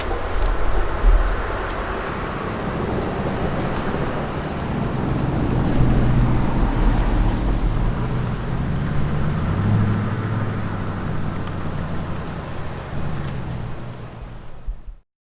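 Diesel train running by, its engine droning steadily over a broad rumble. The engine note rises slightly past the middle, then the sound fades and cuts off abruptly near the end.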